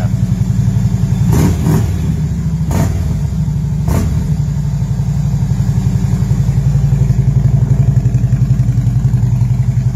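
Harley-Davidson V-twin idling through newly fitted 4.5-inch RC exhaust pipes: a steady, evenly pulsing exhaust note. A few brief knocks come in the first four seconds.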